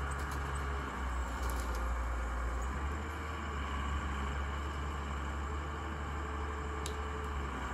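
Hyundai Robex 200 LC excavator's Cummins 6BT5.9 six-cylinder diesel running steadily as the machine works, a low drone with a few faint clicks.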